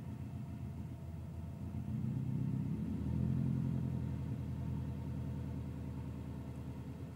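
Subaru STi's turbocharged flat-four boxer engine idling unevenly: the idle swells louder about two seconds in, then slowly settles back down. This uneven idle after stopping or revving is taken by the owner for a possible vacuum leak, following a larger 20G-XT turbo, bigger injectors, a new turbo inlet and a new tune.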